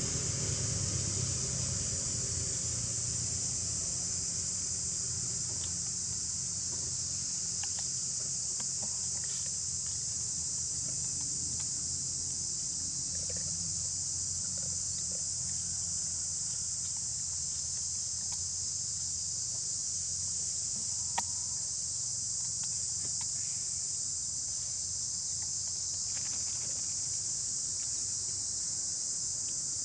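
Steady high-pitched drone of a forest insect chorus, with a low hum underneath and a few faint ticks, one sharper than the rest about two-thirds of the way through.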